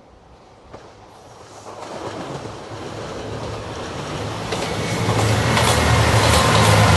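JR Shikoku 2700-series diesel limited express train approaching and growing steadily louder, its diesel engines humming low and its wheels clicking over the rail joints near the end.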